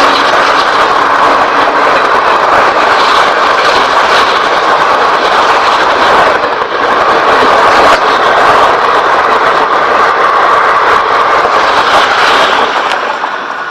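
Express train passing at speed, a loud steady rush of wheel and rail noise that fades near the end.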